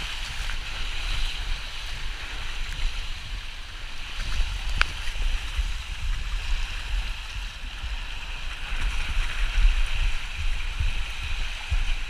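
Water rushing and splashing around an inflatable tube as it slides down an open water-park tube slide, a steady hiss over a low rumble. One sharp knock about five seconds in.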